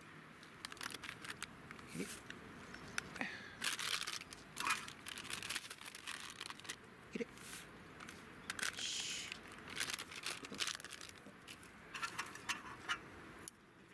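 Irregular crackling and crinkling clicks while spaghetti cooks in a pot on a camp stove, with several louder rustling bursts.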